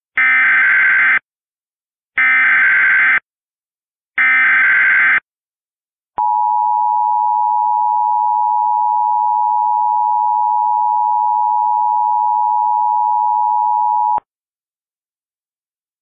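Emergency Alert System broadcast tones. First, three one-second bursts of warbling SAME header data tones, each about a second apart, which encode the alert for receivers. Then, after a short gap, the two-tone EAS attention signal (853 and 960 Hz), held steady for about eight seconds before it cuts off abruptly.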